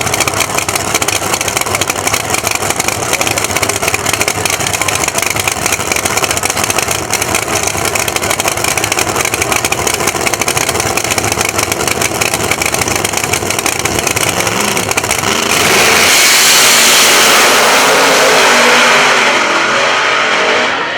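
Drag race cars' engines running and revving. About fifteen seconds in, the sound gives way to a louder rushing noise with less low rumble, with what may be shouting near the end.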